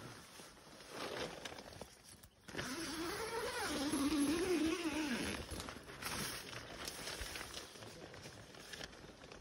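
Tent door zipper being pulled open in one long stroke: a buzzing whine that wavers up and down in pitch as the pull speeds up and slows, after some rustling of tent fabric.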